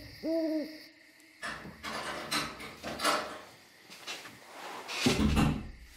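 An owl hoots once. Then comes an irregular series of knocks and clunks like doors and drawers being handled, with a louder, deeper thud about five seconds in.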